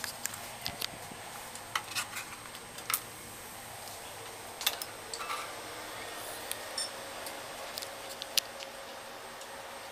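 Irregular sharp clicks and ticks scattered over a steady faint hiss, the sharpest about halfway through and again near the end.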